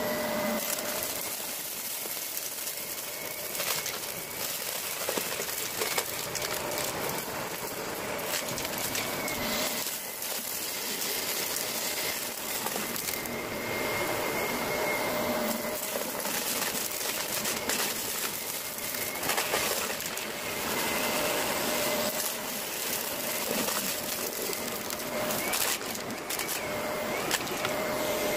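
Handheld vacuum cleaner running with a steady motor whine and rush of air, sucking up confetti and small bits of debris from a rug. Many short clicks and rattles come through as the pieces are pulled up the nozzle.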